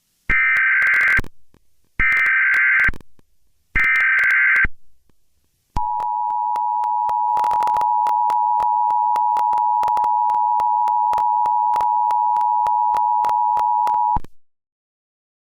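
Emergency Alert System tones: three bursts of the SAME digital header, about a second each, then the EAS two-tone attention signal, a steady dual tone held for about eight and a half seconds that cuts off abruptly. Together they announce that an emergency alert message is about to be read.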